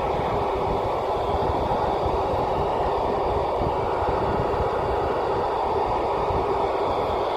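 Steady hiss of an Icom IC-2730A dual-band FM radio with the squelch open, tuned for the SO-50 satellite but picking up no signal, only noise. Wind buffets the microphone underneath it.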